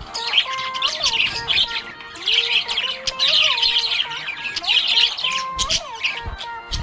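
Budgerigars chirping and warbling continuously, many quick overlapping chirps with a few longer gliding notes.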